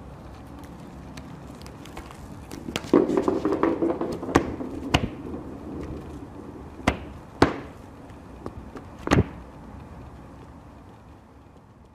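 A cat batting a hard ball toy around a woven mat and knocking into the camera: a burst of rustling and scraping about three seconds in, then about five sharp knocks over the next six seconds.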